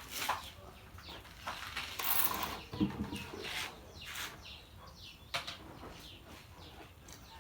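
Small birds chirping repeatedly in short falling notes, with scattered clicks and a dull thump about three seconds in.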